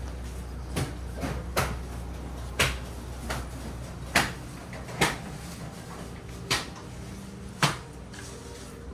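A series of sharp knocks or clacks, about nine at uneven intervals, over a low steady hum.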